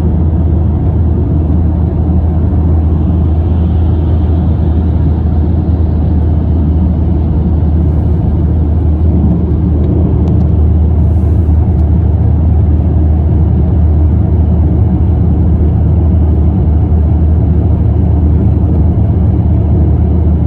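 Steady low rumble of road and engine noise inside a car cruising at speed.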